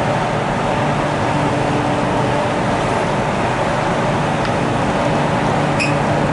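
Cabin noise of a CR400BF high-speed train running steadily at about 294 km/h: a steady rumble of wheels on rail and rushing air, with a faint even hum from the traction motors. A short high beep sounds near the end.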